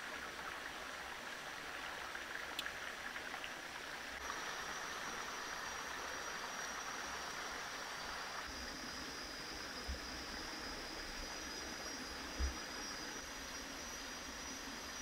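Steady rushing noise of a flowing stream. From about four seconds in, a thin, steady high whine joins it, and there are two soft low thumps near the end.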